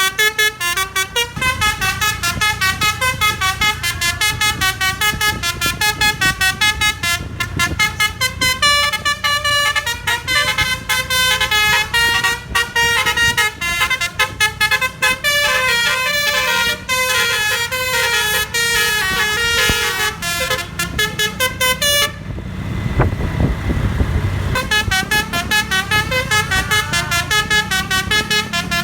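Telolet (basuri) multi-tone bus horn with roof-mounted trumpets playing a fast tune of short notes that step up and down in pitch. About three-quarters of the way through it stops for about two seconds, leaving a low rumble, then starts the tune again.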